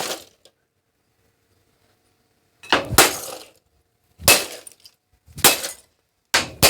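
Hard blows with a stick smashing a plastic device, each with a crack and rattle of breaking plastic: one at the start, then a pause and four more about a second apart.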